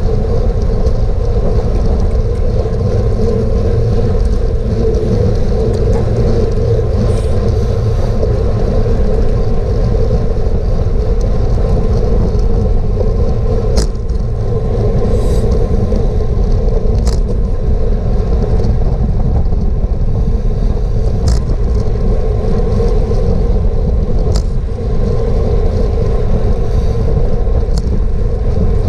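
Wind rushing over an action camera's microphone on a bicycle at racing speed: a loud, steady rumble, with several sharp clicks scattered through the second half.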